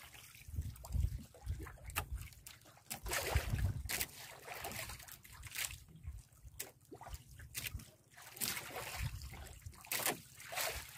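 Sea water sloshing and splashing against the hull of a small wooden outrigger boat, in uneven surges, with a few sharp knocks.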